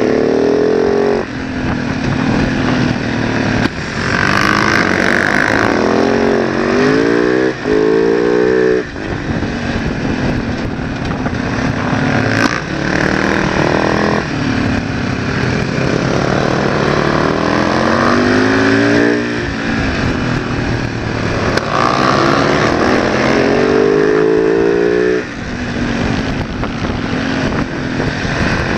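Supermoto motorcycle engine heard from on board at speed, its revs climbing in long pulls and then dropping away about three times, over a steady rush of wind.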